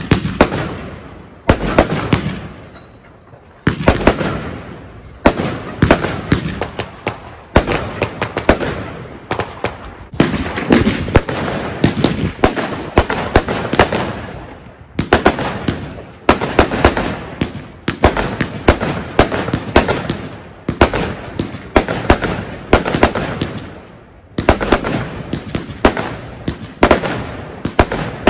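Consumer firework cake batteries firing: volleys of sharp bangs in quick clusters, each trailing off in a crackle, with short lulls between them. One battery, the Argento Carolus, ends and the next, the Argento Blossom, takes over about ten seconds in.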